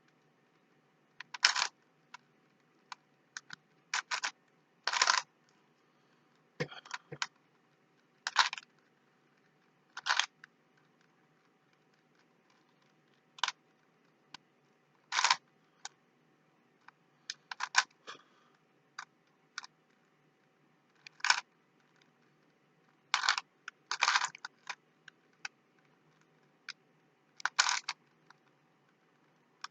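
Rubik's Cube layers being turned by hand: short plastic clicks and clacks, one or two every second or so at an uneven pace, some in quick runs of two or three turns.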